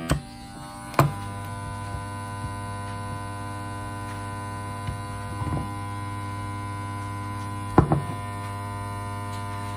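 Steady electric hum of a small vacuum sealer pump motor, with short knocks as glass mason jars and the lid attachment are handled, the loudest about a second in and a pair near the end.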